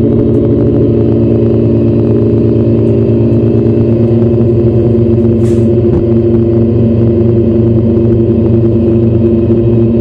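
Music From Outer Space Weird Sound Generator synth played through a guitar amp with reverb: a steady, buzzy drone of several held tones with a fast flutter running through it.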